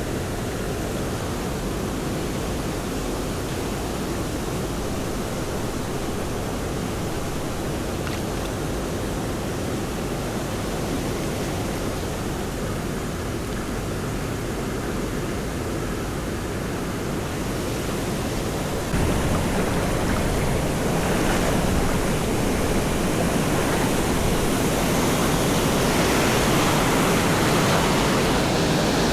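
Waterfall rushing steadily, stepping up louder and brighter about 19 seconds in.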